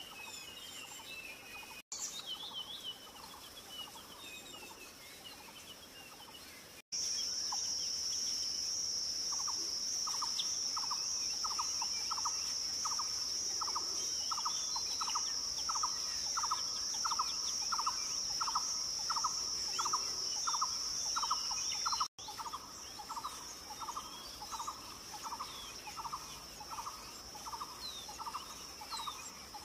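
Wild birds calling: scattered high chirps at first, then a low note repeated about twice a second under a loud, steady high-pitched buzz. The sound changes abruptly at a few hard cuts.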